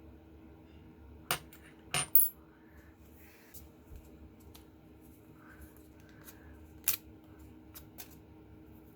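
Small metal parts clicking and clinking against each other and a hard surface: a few sharp, separate strikes, loudest about a second and two seconds in and again near the end, over a faint steady hum.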